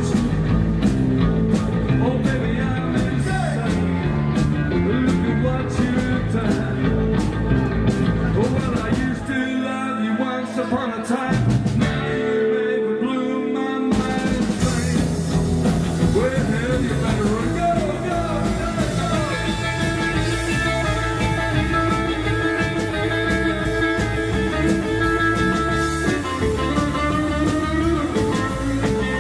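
Live rock band playing an instrumental passage with bending electric guitar lines over bass and drums. About ten seconds in, the bass and drums drop out for a few seconds, and the full band comes back in about fourteen seconds in.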